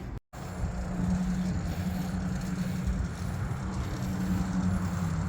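Steady wind and road noise from a track bike being ridden, with a constant low hum, broken by a brief dropout just after the start.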